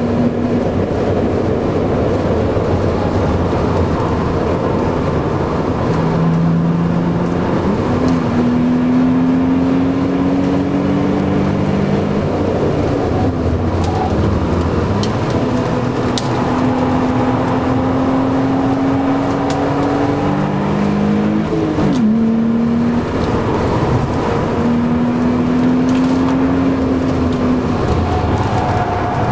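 BMW Z3 2.8's straight-six heard from inside the cabin under hard driving. Its pitch climbs steadily and drops back several times, over a steady rush of road and wind noise.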